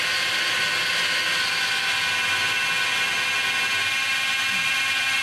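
Makita 750-watt die grinder, serving as the spindle of a homemade CNC milling machine, running at speed with a steady whine of several tones while the machine mills an aluminium plate.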